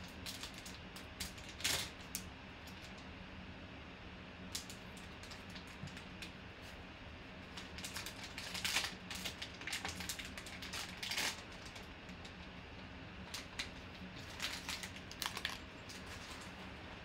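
Glossy black plastic pouch crinkling and rustling as it is worked open by hand and a slabbed card is slid out, in irregular spells of sharp crackle.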